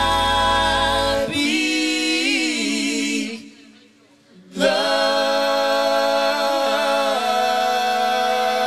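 Live band's instruments drop out about a second in, leaving the singers' voices unaccompanied in harmony. After a short pause a little before the middle, the voices come back in and hold one long chord, the song's a cappella ending.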